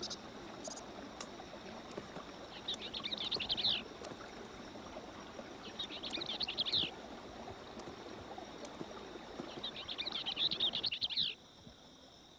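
Barn swallow twittering: three bursts of rapid, high chirps, each about a second long, over a steady outdoor hiss. Near the end the background noise drops away.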